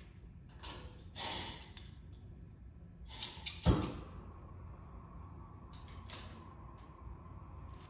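Propane torch being lit: two short hisses of gas, then it catches with a sharp pop a little under four seconds in and burns with a faint steady whistle.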